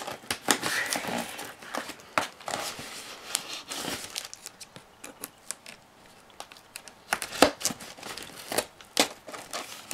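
Packaging on a cardboard shipping box being torn and crinkled open by hand, with irregular crackles and sharp snaps, the loudest about seven and a half seconds in.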